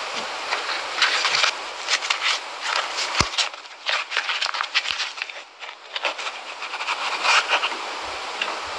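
Close-up crinkling and scraping of a cardboard tube being squeezed, folded and torn by hand, in irregular crackly bursts, with one sharp knock about three seconds in.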